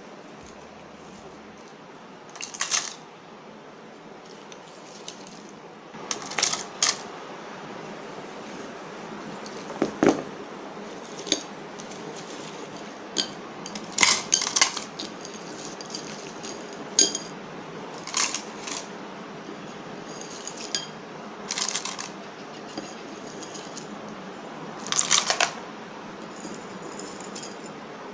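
Irregular clicks, taps and short clatters of small hard objects being handled, about a dozen scattered through the stretch, over a steady background hiss.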